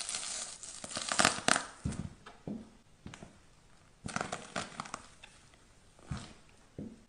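A sneaker sole stepping down on and squashing things on a hard floor, among them a clump of mushrooms. It comes as crackling crushing sounds in irregular bursts, loudest in the first two seconds, again about four seconds in, and once more briefly near six seconds.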